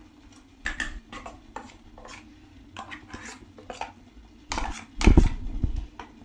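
Steel ladle scraping ground coconut paste out of a stainless-steel mixer-grinder jar into a cooking pot, with a string of separate scrapes and light clinks of metal on metal and a heavier knock about five seconds in.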